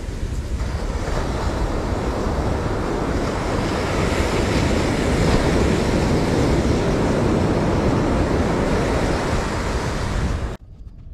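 Steady rushing of wind and sea water with wind buffeting the microphone, swelling slightly partway through. It cuts off abruptly near the end.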